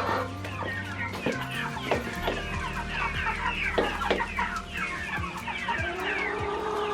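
A flock of Cornish Cross meat chickens clucking and calling, with many short falling calls overlapping throughout, plus a few sharp clicks.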